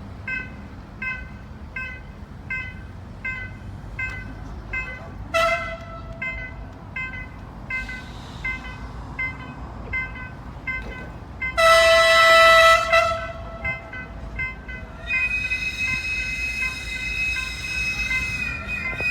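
Train horn sounding: a short blast, then a longer loud blast, then a steady high multi-tone sound held near the end. An electronic beeping repeats about twice a second underneath.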